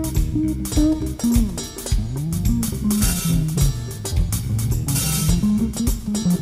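Instrumental rock-fusion recording: an electric bass plays a busy low line, sliding between notes, over a drum kit with cymbals.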